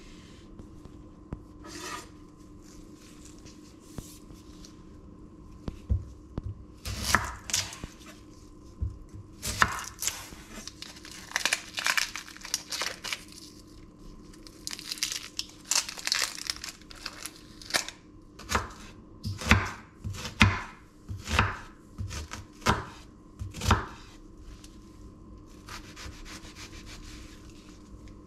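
An onion being trimmed and peeled on a wooden cutting board: irregular knife knocks on the board and the dry crackle and tearing of papery onion skin, thickest in the middle and quieter near the end, over a faint steady hum.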